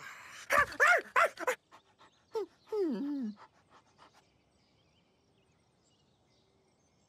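A cartoon dog's vocal sounds: several short pitched calls in quick succession, then one that falls in pitch about three seconds in. After about four seconds there is near silence.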